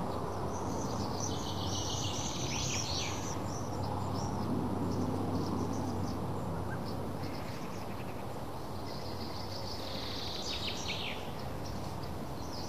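Small birds chirping and singing in short repeated phrases over a steady low hum and background hiss.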